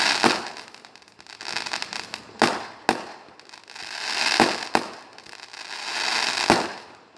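Firecrackers going off: recurring swells of hissing crackle, each broken by one or two sharp bangs, about every two seconds.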